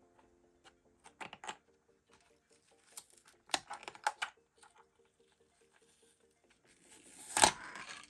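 Irregular light clicks and taps in a small room, with a louder scrape or rustle near the end.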